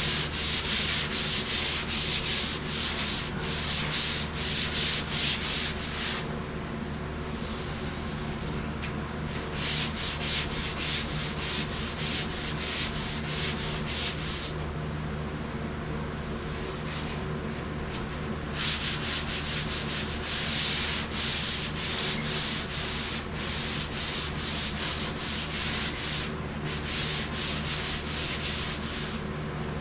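Hand sanding a car body panel with sandpaper: quick back-and-forth strokes in runs of several seconds, broken by three short pauses. A steady low hum runs underneath.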